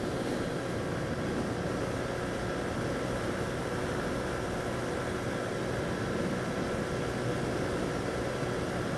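Honda CG 125 motorcycle's single-cylinder four-stroke engine running steadily at an even cruising speed, mixed with steady wind rush over the microphone.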